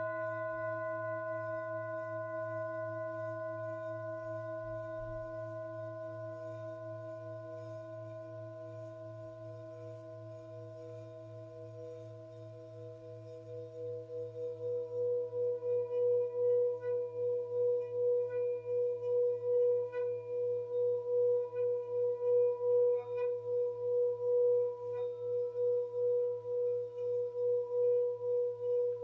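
Tibetan singing bowl ringing: its tone fades slowly, then about fourteen seconds in it swells again into a loud, steadily pulsing, wavering ring. A steady low hum lies underneath.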